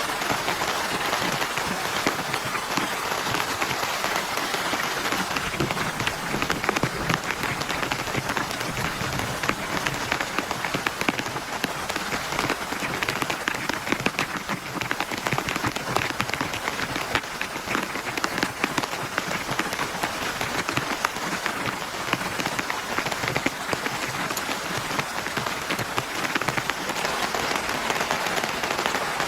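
Heavy rain falling steadily: a dense, even hiss packed with countless small drop impacts, without let-up.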